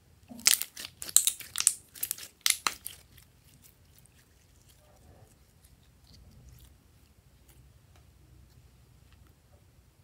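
Glossy slime being stretched, folded and pressed in bare hands, giving a burst of sharp sticky clicks and pops as air pockets burst in the first three seconds, then only faint scattered clicks.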